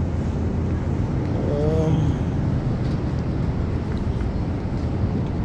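Steady low background rumble, with a short snatch of a voice about a second and a half in.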